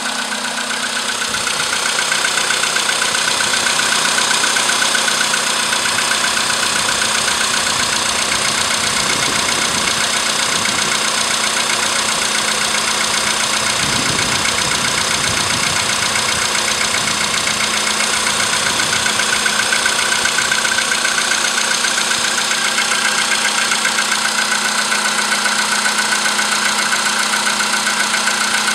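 Volkswagen Polo Sedan's 1.6-litre CFNA four-cylinder petrol engine idling soon after a cold morning start, with a rapid, steady knock running through the idle.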